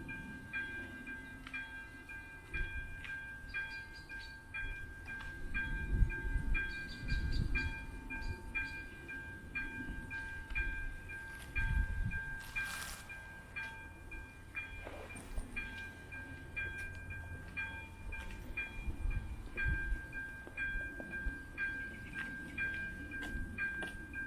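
Railway level-crossing warning bell ringing steadily, a metallic ding about twice a second, with low rumbling swells underneath now and then.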